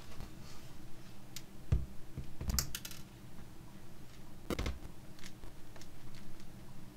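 Scattered plastic clicks and knocks from a laptop's plastic case being handled and turned over on a desk, with a few heavier knocks among the light clicks.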